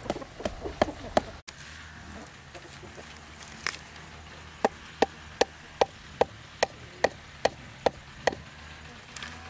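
Machete blade striking a bamboo pole: a few quick knocks at the start, then after a pause a steady run of about ten sharp knocks, roughly two and a half a second, each with a short ring.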